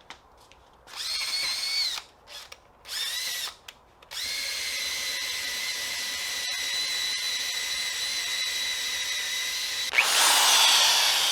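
Power drill spinning a rubber eraser wheel to strip emblem adhesive residue off painted body metal. It runs in a few short bursts, then as a steady whine from about four seconds in, and near the end it gets louder with its pitch dropping.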